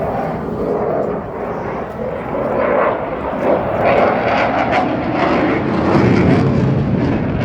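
Jet noise from a Eurofighter Typhoon's twin turbofan engines during its display. The noise grows louder about three seconds in and has a crackling edge.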